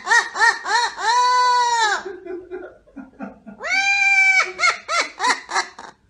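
Amazon parrot vocalising loudly in a song-like voice: runs of quick rising-and-falling notes, about five a second, around two long held notes, with a quieter, lower stretch in the middle.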